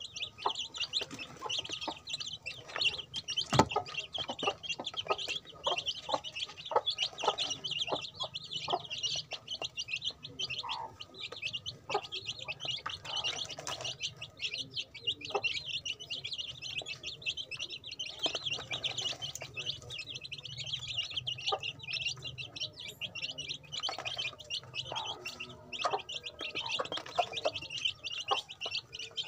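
A brood of chicks peeping continuously in high, rapid chirps, with scattered sharp taps of beaks pecking at feed in a plastic tray.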